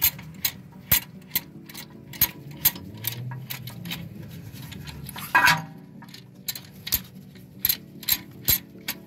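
Metal clicking, about two clicks a second, as a C-clamp is worked on a brake caliper to press the piston back, with a louder clunk about five seconds in.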